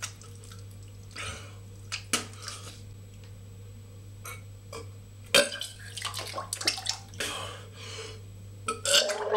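A man retching, spitting and breathing hard over a toilet as he vomits up Vegemite, in scattered short bouts with drips and splashes into the bowl water.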